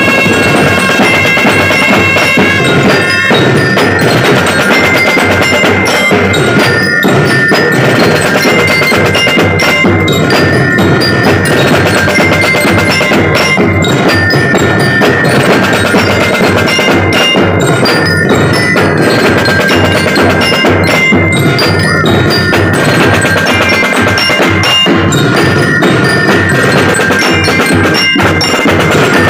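Drum and lyre corps playing a tune: bell lyres ring out the melody over steady bass and marching drum beats.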